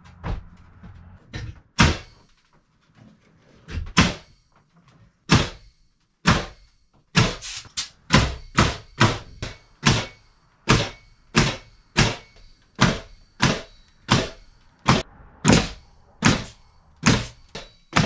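Pneumatic framing nailer driving nails through a board into roof rafters: a few scattered shots, then a steady run of about one and a half shots a second from about seven seconds in.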